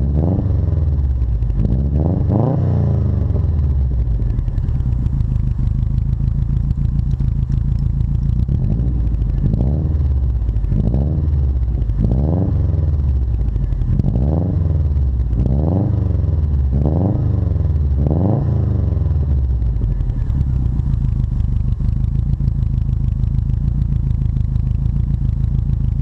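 1998 Subaru Forester's swapped-in JDM STI turbocharged boxer four, heard at the tailpipe of a 3-inch catless turboback exhaust, revved in short throttle blips that rise and fall back quickly. There are two blips in the first few seconds, then a run of about seven, a second or so apart. From about 19 s it settles into a steady idle with a boxer rumble.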